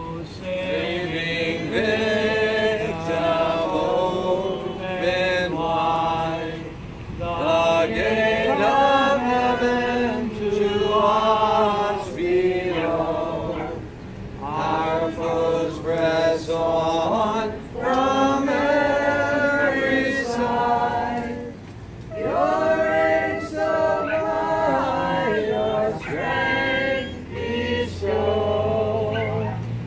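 Unaccompanied liturgical chant by a man's voice, sung in phrases of held, wavering notes with short breaks between them.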